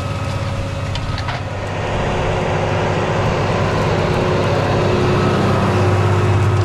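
Deutz-Fahr 6175 TTV tractor's six-cylinder diesel engine running steadily under load as it pulls a chisel plow through the soil, growing louder from about two seconds in as the tractor passes close by.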